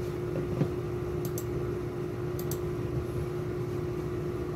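Steady mechanical hum with one constant tone and a low rumble, and two faint, sharp double clicks a little over a second apart.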